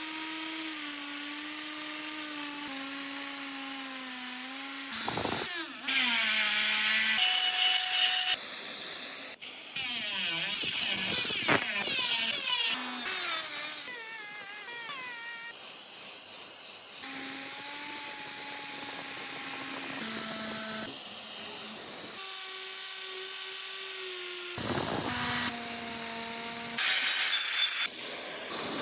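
Electric power tools running in a string of short clips, each with a steady motor whine at a different pitch, some rising or falling, along with the rasp of cutting or sanding.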